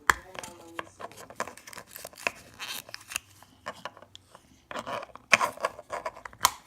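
Plastic toy packaging being torn and crinkled open by hand, in a string of sharp crackles and rips, with the loudest near the end.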